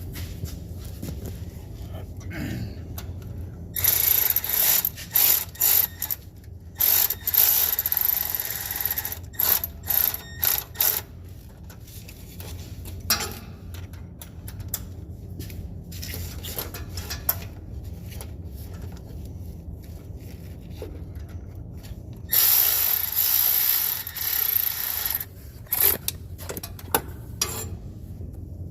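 A socket ratchet clicking in repeated short strokes, working a bolt during a starter replacement on a 2001 Ford F250 with the 5.4 engine. The clicking comes in two runs of strokes, one in the first half and one near the end, over a low steady hum.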